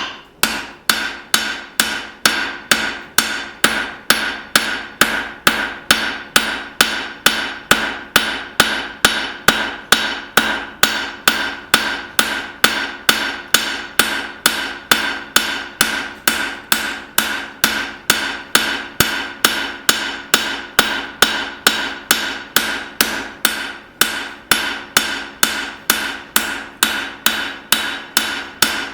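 Blacksmith's hand hammer striking hot leaf-spring steel on an anvil in a steady rhythm of about two to three blows a second, each blow leaving a ringing tone, while forging the bevels of a knife blade. The hammering breaks off briefly about 24 seconds in.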